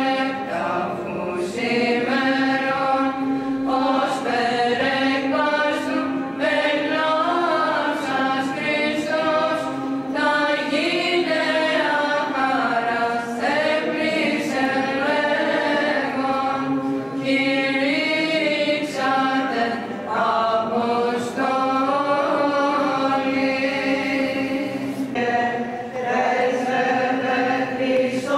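A small group of women's voices chanting a Byzantine Orthodox hymn: a melody that moves in short ornamented phrases over one steady held drone note (the ison).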